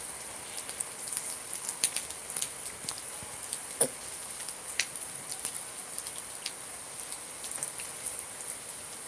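Rain falling: a steady hiss with irregular pattering drops ticking, one louder tick about four seconds in.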